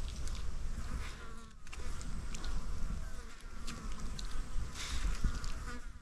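Insects buzzing, over a low rumble with scattered faint clicks.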